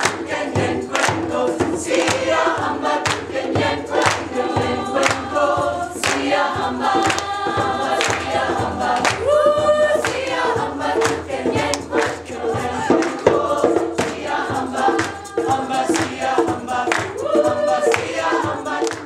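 High school choir of mixed voices singing in parts, with rhythmic hand claps on the beat.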